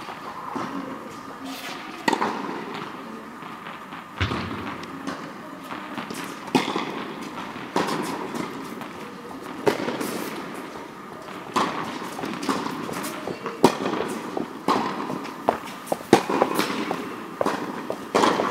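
Tennis balls being hit with rackets and bouncing on the court: a string of sharp, irregular pops and knocks.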